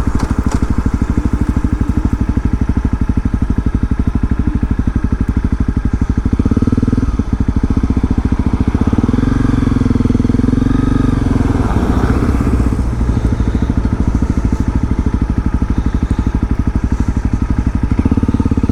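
Honda CRF250L's single-cylinder four-stroke engine running while the bike is ridden along a road, its firing pulses rapid and even.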